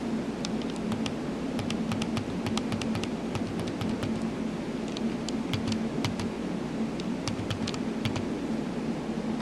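HP-67 calculator's magnetic card reader running with a steady hum and irregular sharp clicking, a few clicks a second, as the faulty refurbished reader struggles to pull the card through.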